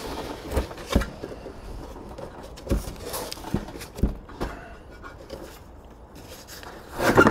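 Irregular knocks, scrapes and rustles as a new steel sill panel is worked out of its cardboard box and handled, with a louder clatter near the end.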